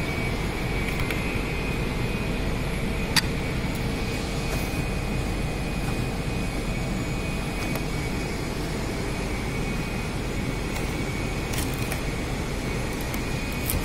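Steady drone of running workshop machinery with a thin high whine. A single sharp click about three seconds in, with a few faint ticks near the end.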